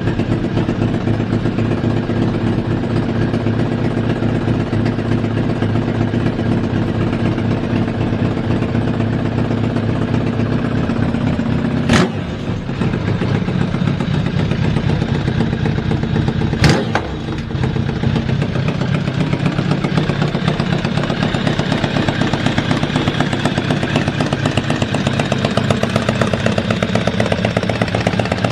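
Kawasaki ZRX1200 DAEG inline-four engine idling steadily with no abnormal noise, interrupted by two brief sharp sounds about twelve and seventeen seconds in.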